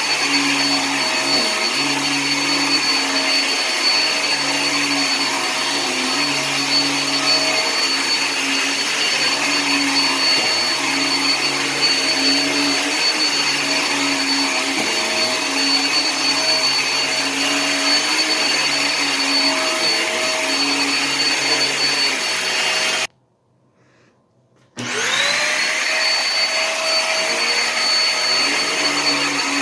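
Hoover React upright vacuum running steadily over carpet, with a high motor whine and a lower hum that wavers every second or so. About 23 seconds in it cuts out for nearly two seconds, then comes back with a whine rising up to speed.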